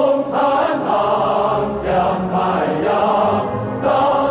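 A choir singing with music behind it, the soundtrack of a Cultural Revolution-era newsreel, with a short dip in the singing near the end.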